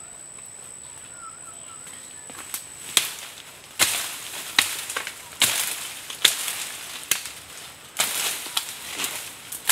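Dry brush and brittle stems crackling and snapping in sharp, irregular bursts as someone forces through or hacks at dense dry undergrowth, starting about three seconds in. Before that a thin, steady high whine is heard, which stops as the crackling begins.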